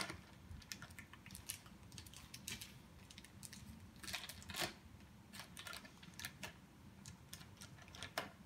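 Faint, irregular crinkling and clicking of clear plastic wrapping being picked at and peeled from the end of a rolled-up poster.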